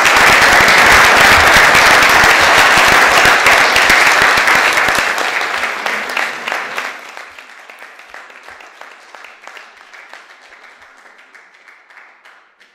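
An audience applauding, loud and full at first, then dying away after about six seconds into a few scattered claps.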